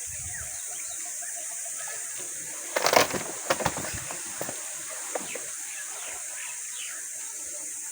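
Rustling and crackling of leaves and twigs about three seconds in, over a steady high hiss, with a few faint short chirps afterwards.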